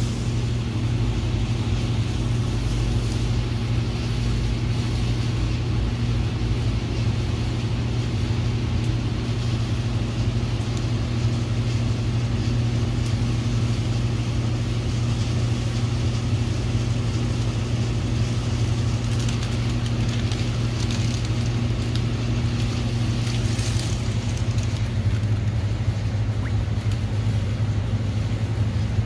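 Steady low machine hum with a constant hiss from the dip-tank equipment of a hydrographics shop; the hum thickens slightly near the end.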